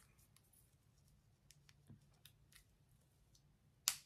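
Faint rustling and small ticks of hair being handled, then a sharp click near the end: the metal snap clip of a clip-in hair extension weft pressed shut against the hair.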